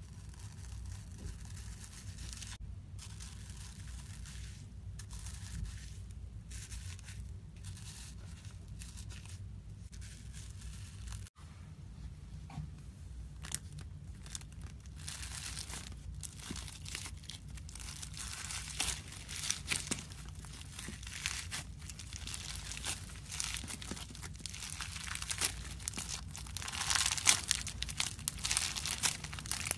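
Slime being squished and pulled apart by hand, giving sticky crackling and tearing sounds over a low steady hum. About eleven seconds in there is an abrupt cut to another clip, where the crackles grow denser and louder toward the end.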